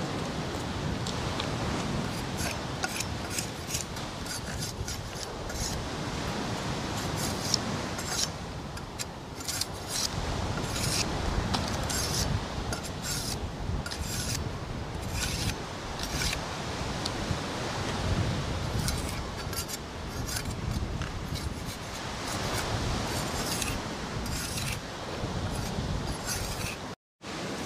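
Machete blade scraping bark off a wooden stick, a long run of quick, rasping strokes.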